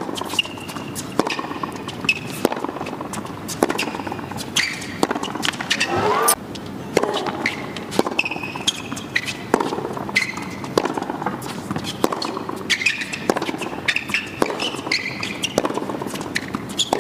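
Tennis rally on a hard court: rackets strike the ball back and forth about once a second, with sneakers squeaking on the court between shots.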